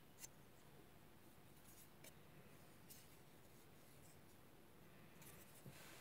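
Near silence, with a few faint clicks and rubs of fingers handling a plastic beard-shaping comb template.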